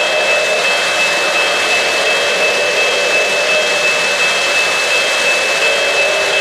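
O-gauge model freight trains rolling on three-rail track: a steady rushing rumble of wheels on rail, with a thin steady high-pitched whine over it.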